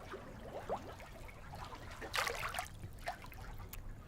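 Faint water splashing and trickling, with a brief louder splash about two seconds in.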